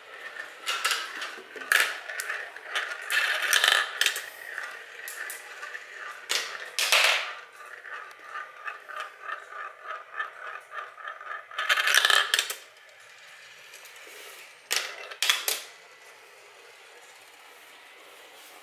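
Marbles rolling and clattering through a plastic marble run, with loud clacks as they drop onto track pieces, several in the first few seconds, then near the middle, around twelve seconds and twice near the end. Under them a motorised marble elevator keeps up a fast, even ticking that stops at about twelve seconds, leaving the sound quieter.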